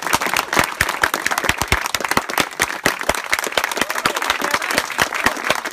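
A group of people applauding, with many hand claps overlapping steadily.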